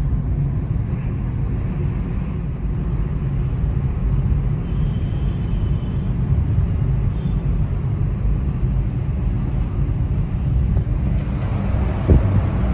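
Steady low rumble of a car in motion, with no marked change in speed.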